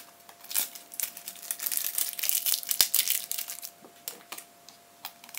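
Thin clear plastic tub crinkling and clicking as it is handled, a quick run of rustles and taps that is densest in the middle and thins out near the end.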